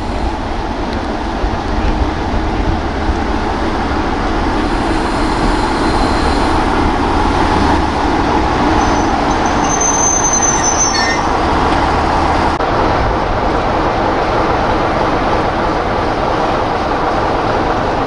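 A Class 45 'Peak' diesel-electric locomotive with a twin-bank Sulzer engine runs steadily as it comes into the platform and passes close by, with a brief high-pitched squeal about ten seconds in. After a sudden change about two-thirds of the way through, a Class 25 diesel locomotive's engine is heard running.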